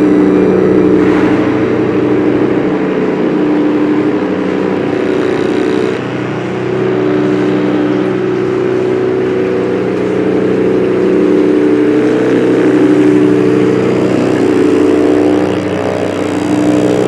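Drone synthesizer: layered, sustained low tones that shift slowly, with a noisy hiss over them. The level dips briefly about six seconds in.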